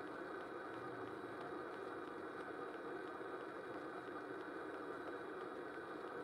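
Steady background noise, a continuous hiss with no distinct events, with a faint regular ticking in it at about four ticks a second.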